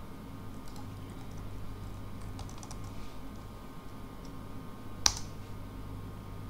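Computer keyboard typing: a few soft keystrokes in the first three seconds, then one louder click about five seconds in, over a low steady hum.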